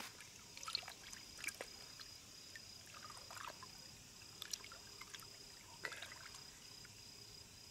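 Faint, light splashes and trickles of shallow water around a yellowcheek held by the jaw as it is revived for release, coming a few at a time. A faint steady high whine runs beneath.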